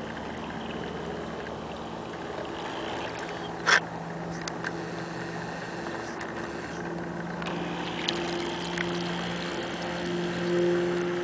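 Motor of a radio-controlled model destroyer running steadily as it cruises, a low hum that grows louder near the end as the boat comes close. A single sharp click sounds about four seconds in.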